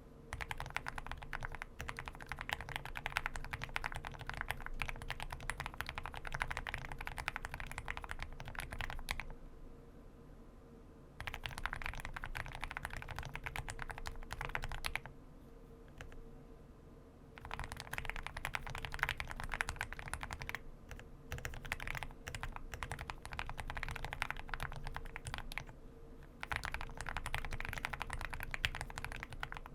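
Continuous typing on an Owlab Spring ergonomic-layout mechanical keyboard with Everglide BeesWax linear switches and PBT keycaps, a fast stream of keystrokes. The typing stops briefly twice, about nine and fifteen seconds in.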